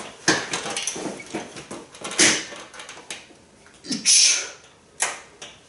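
A man's forceful breaths and a short strained grunt as he presses heavy 30 kg dumbbells overhead. There is a sharp knock just after the start and another near the end.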